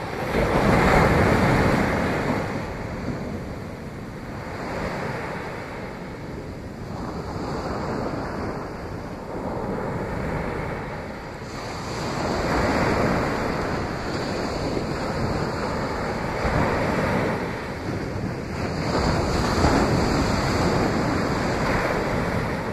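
Small ocean waves breaking and washing up a sandy shore. The surf swells and eases every three to four seconds as each wave comes in.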